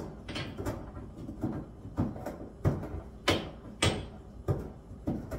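Pestle pounding black peppercorns in a mortar: a series of sharp knocks, about two a second, unevenly spaced.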